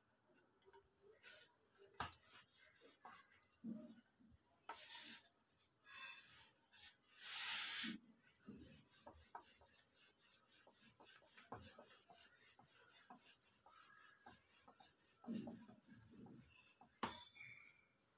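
Faint rubbing of a wooden rolling pin rolling out luchi dough on a wooden board, in repeated strokes with a few light knocks; two louder scraping rubs come about five and seven and a half seconds in.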